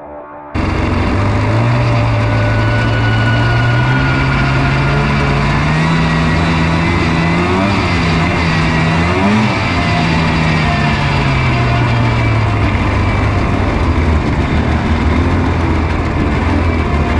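Off-road vehicle engine running under way, starting abruptly about half a second in; its pitch climbs over several seconds as it speeds up, then drops back to a steady lower note.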